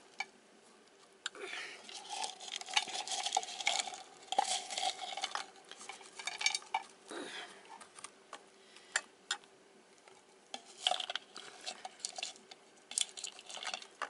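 Pecan halves clicking and rustling as they are taken from a can and pressed down by hand into brown sugar on acorn squash halves in a ceramic baking dish. Irregular bursts, busiest in the first half and again near the end.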